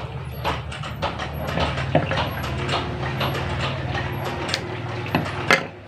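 Small irregular clicks and crinkles of fishing line and clear plastic lure strips being handled and tied, over a steady low engine-like drone that fades out near the end.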